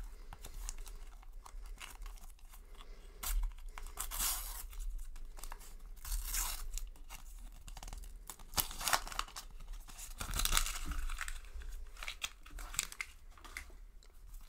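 Sticker packet with a foil-lined wrapper being torn open and crinkled by hand, then the stickers slid out and handled: irregular bursts of tearing, rustling and crackling.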